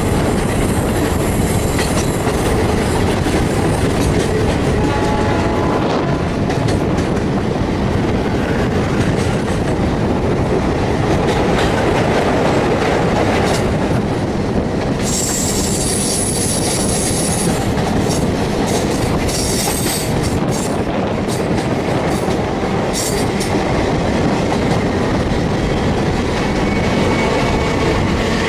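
Express passenger train running at speed, heard from the coach: a steady rumble of wheels on rails with clickety-clack over the rail joints. From about halfway in, as the train crosses a steel truss bridge, a high-pitched squeal and rattling clicks come in for several seconds.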